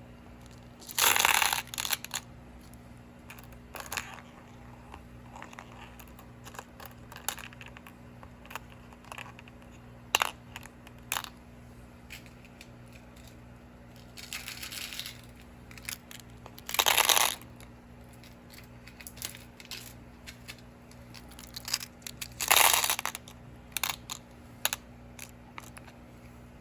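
Bead strands and their plastic packaging being handled: a few short bouts of crinkling and rustling, with scattered small clicks between them.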